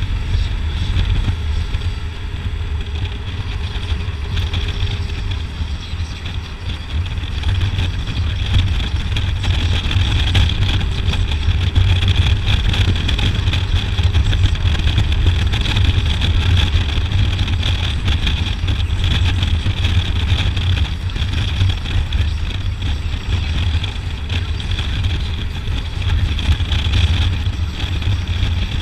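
Harley-Davidson Road Glide's V-twin engine running steadily while cruising, with wind rushing across the microphone.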